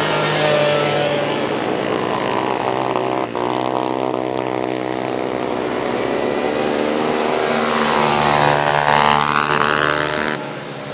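Small racing ATV engines running hard, their pitch rising and falling with the throttle as the quads accelerate through corners. The engine note shifts abruptly about three seconds in and drops in loudness near the end.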